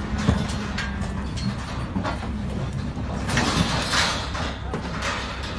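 Longhorn cattle hooves clomping down a livestock trailer's ramp, with knocks and rattles from the trailer. A longer scraping noise comes about three and a half seconds in.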